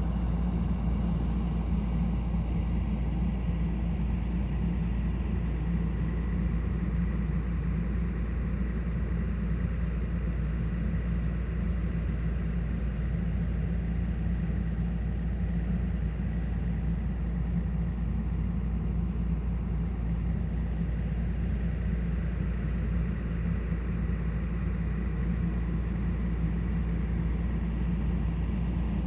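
Hyundai excavator's diesel engine running steadily with no change in speed, a low, even drone.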